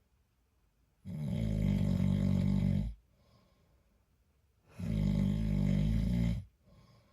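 A man snoring: two loud snores of about two seconds each, one about a second in and the next a few seconds later, with quiet between them.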